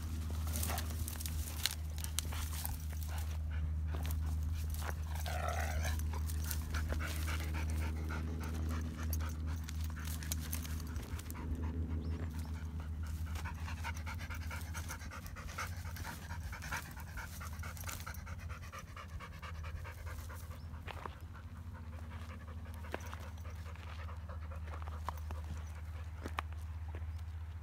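Young Kangal dogs play-fighting: panting, with high, wavering whines in the middle stretch. A steady low rumble runs underneath.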